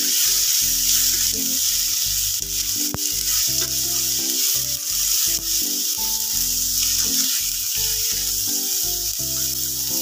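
Boiled potato cubes sizzling in hot oil in a stainless steel frying pan while a spatula stirs and turns them, with one sharp click about three seconds in.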